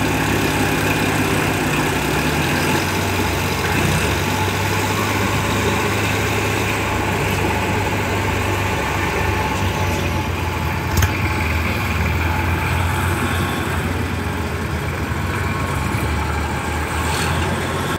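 Eicher 5660 tractor's diesel engine running steadily near idle while the hydraulic tipping trailer unloads soil, with one sharp knock about eleven seconds in.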